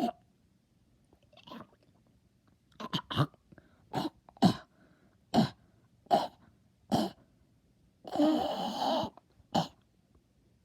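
A person coughing over and over: about ten short single coughs, spaced half a second to a second apart, and about eight seconds in a longer, drawn-out cough lasting about a second.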